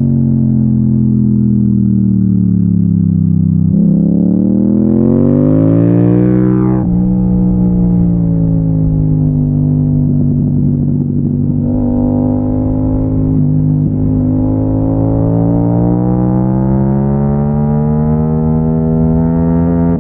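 Yamaha MT-07 parallel-twin engine pulling under way. The revs climb sharply about four seconds in and drop abruptly near seven seconds. The engine then pulls on steadily, the revs slowly rising again toward the end.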